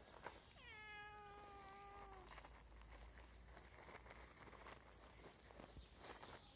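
A young stray cat gives one long meow about half a second in. It drops in pitch at the start and then holds level, a hungry cat begging for food. Faint scattered clicks follow.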